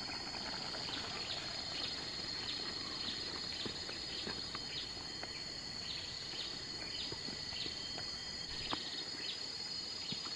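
Steady high-pitched drone of insects, with a repeated short chirp about twice a second running through it.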